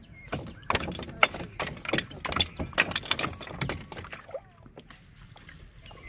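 A freshly caught fish flapping on the wooden planks of a small boat: a rapid, irregular run of knocks and slaps that dies away about four and a half seconds in.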